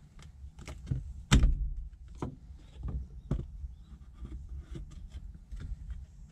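Clicks and knocks from pliers, a screwdriver and a Daihatsu Hijet's black accelerator pedal assembly being prised loose and handled. The loudest is a sharp knock about a second and a half in.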